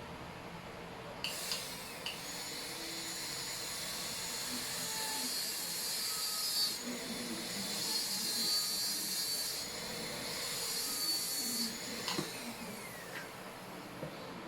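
High-speed dental handpiece (air-turbine drill) whining as it cuts a Class II cavity preparation in a lower molar. It starts about a second in and stops near the end, its pitch wavering slightly under load.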